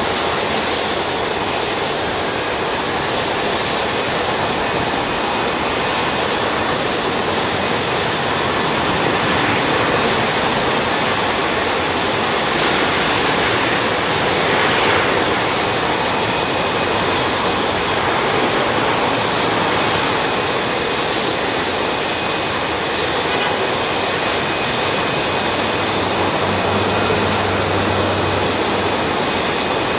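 Airbus A340-600's four Rolls-Royce Trent 500 turbofans at taxi idle: a steady jet rush with a thin high whine. A low hum joins for a few seconds near the end.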